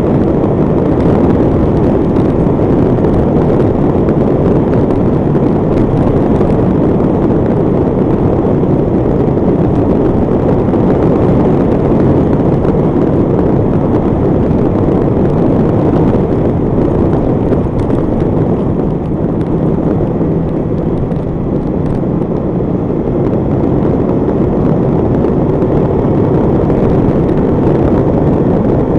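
Heavy wind rush on the microphone of a motorcycle-mounted camera, mixed with the drone of a Honda CBR1100XX Super Blackbird's inline-four engine at a steady cruising speed.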